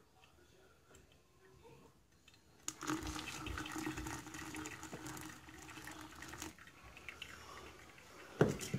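Hot water poured onto coffee grounds in a paper filter for about four seconds, starting about three seconds in, then coffee trickling through. A sharp knock near the end.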